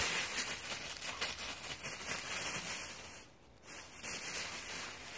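Dry fallen leaves crunching and rustling as a dog runs and romps through a deep leaf pile. The crackling breaks off briefly a little past three seconds in, then resumes more quietly.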